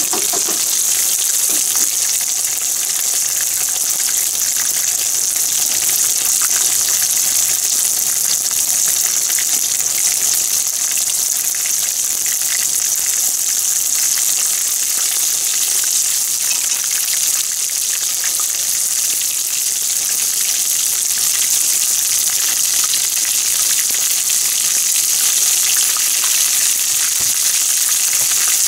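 Breaded pieces deep-frying in a pan of hot oil: a steady, high hissing sizzle with fine crackling.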